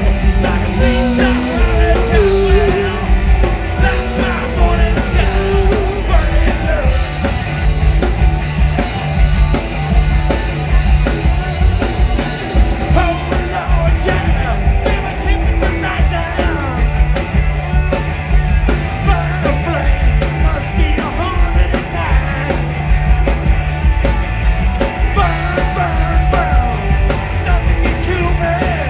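Rock band playing loud punk rock: driving drums and electric guitars, with a voice singing and yelling over it at times, clearest in the first few seconds.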